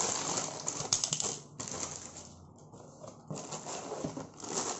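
Clear plastic packaging bag crinkling and rustling in the hands as it is opened and emptied. It is busiest in the first second or so, goes quieter in the middle, and crinkles again near the end.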